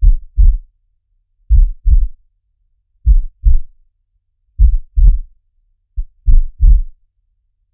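Heartbeat sound effect: pairs of deep thuds in a lub-dub rhythm, repeating about every one and a half seconds.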